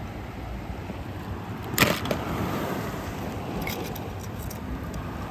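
Small sea waves washing on a rocky shore, a steady surf hiss. A sharp plastic clack about two seconds in and a few light ticks later come from die-cast toy cars being handled and set down on the pebbles.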